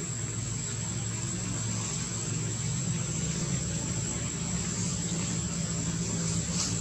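Steady outdoor background: a low, even hum under a hiss, with a continuous thin high-pitched whine over it.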